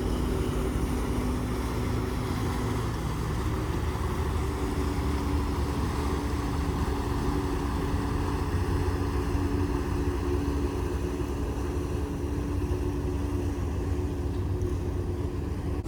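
Steady low engine drone with a constant hum over it.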